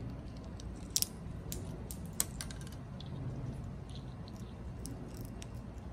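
Amazon parrots feeding from a bowl: scattered sharp clicks and cracks of beaks working the food and knocking the bowl, the loudest a quick double click about a second in and another a second later, over a low steady hum.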